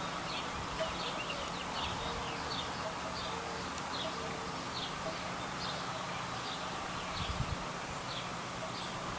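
Birds chirping: many short, quick high chirps repeating throughout, over a steady outdoor background hum, with a few soft low knocks about seven seconds in.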